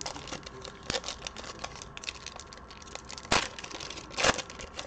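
Plastic wrapper of a 2021 Prizm basketball card pack crinkling and tearing as it is ripped open by hand: a run of small crackles, with two louder crinkles about three and four seconds in.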